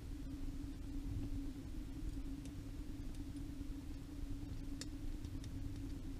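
A steady low hum with a few faint, scattered light clicks as small parts and tools are handled during assembly.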